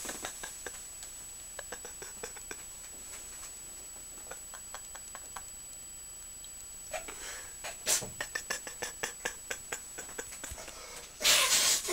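Mostly quiet room with scattered faint clicks and rustles from handling, growing busier in the second half, then a loud breathy burst of noise from the man near the end.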